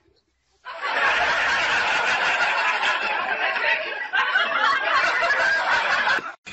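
Several people laughing hard together. The laughter starts suddenly about half a second in, stays loud and continuous, and cuts off just before the end.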